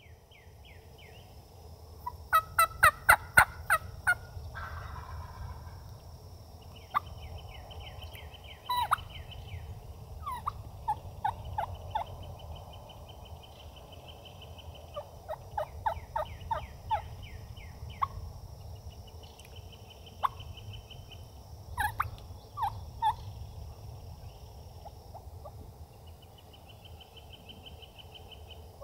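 Wild turkey calling: several bouts of rapid, sharp notes, the loudest run about two to four seconds in and shorter runs near eight, eleven, sixteen and twenty-two seconds. A high, repeated trill from another bird runs between them.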